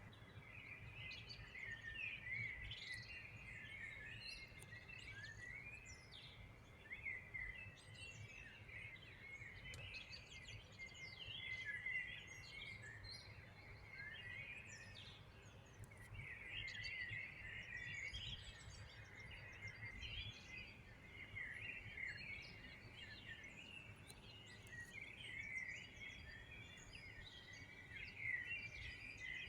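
A chorus of songbirds, many short chirps and trills overlapping without pause, over a faint low rumble of background noise.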